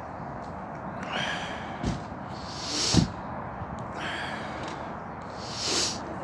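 A person breathing heavily close to the microphone, a breath every couple of seconds with a louder one out about halfway through and another near the end, plus a couple of low thumps.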